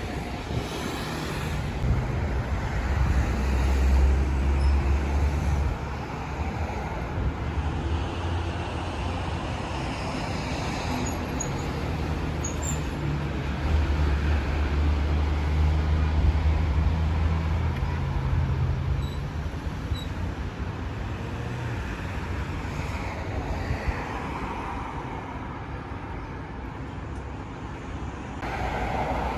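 City street traffic: a steady wash of passing vehicles, with a low engine drone that swells and fades twice. The background noise changes abruptly near the end.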